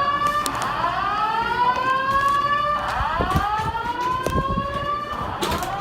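Fire alarm sounding a repeated rising whoop, each sweep climbing for about two and a half seconds, then dropping back and starting again. It is a false alarm, apparently set off by something in the kitchen.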